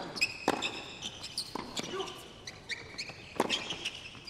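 Tennis rally on a hard court: a run of sharp racket strikes and ball bounces at irregular intervals, a few of them clearly louder than the rest.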